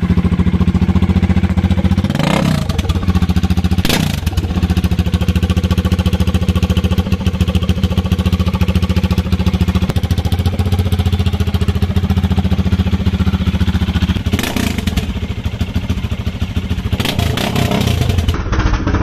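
Bajaj Dominar 400's single-cylinder engine started and idling loudly through a bare short header pipe, with the catalytic converter and silencer removed. A few short sharp sounds come over the steady pulsing idle, about two and four seconds in and again near the end.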